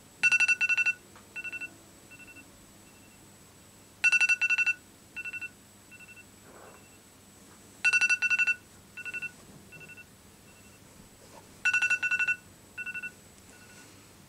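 A smartphone ringtone repeating four times, about every four seconds: each time a quick loud run of two-pitched beeps, then a few softer beeps that fade away.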